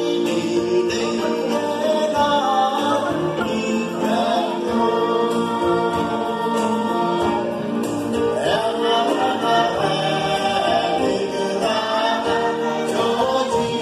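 A church choir of many voices singing a hymn together, continuing steadily without a break.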